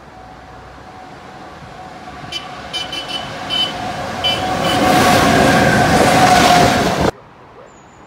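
Electric locomotive approaching at speed and running through the station: a steady whine and a rising rush of the passing train that grow loud, with a series of short high-pitched chirps as it nears, then cut off abruptly about seven seconds in.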